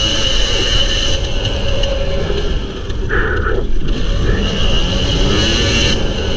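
Kawasaki KDX250's two-stroke single-cylinder engine revving up and down as the dirt bike is ridden at speed, with wind buffeting the microphone. The engine note drops briefly about three seconds in, then picks up again.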